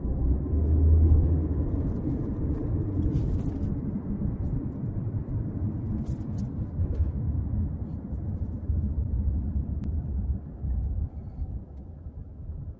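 Low, steady road and engine rumble heard from inside a moving car's cabin, growing quieter near the end.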